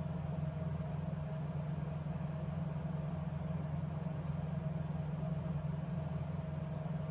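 Steady low hum with a faint, thin whine above it, unchanging throughout, like a running motor.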